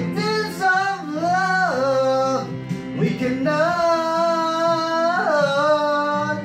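A man singing karaoke into a handheld microphone over a backing track with guitar, holding long notes.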